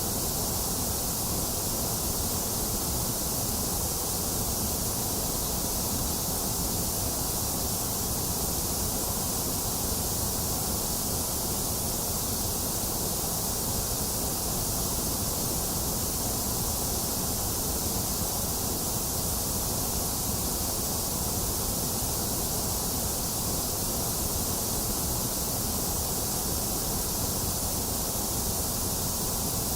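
Box fan running steadily mixed with rain: an even, unchanging hiss with no thunder.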